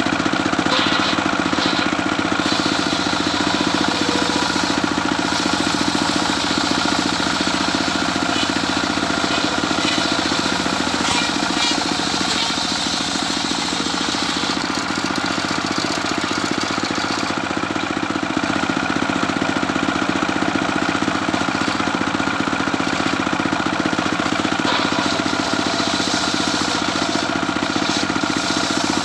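Engine-driven homemade circular sawmill running steadily, its blade ripping yellow medang timber into rafters, with a higher, brighter cutting noise that comes and goes as boards are fed through.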